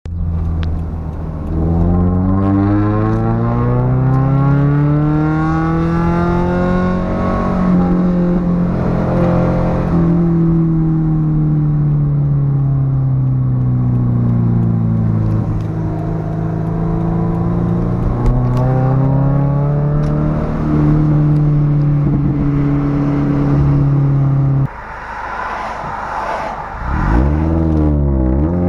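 Subaru BRZ's flat-four engine through a JDL Ultra Quiet catted front pipe, revving: the engine note climbs and falls in pitch several times, then holds steady for a few seconds. About 25 seconds in the sound suddenly drops lower, and near the end there is one more quick rev.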